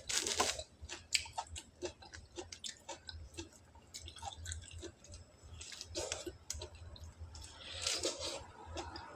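A person chewing orange segments close to the microphone: irregular small wet clicks and crunches, with a louder bite at the start and near the end. The fruit is dry and firm rather than juicy.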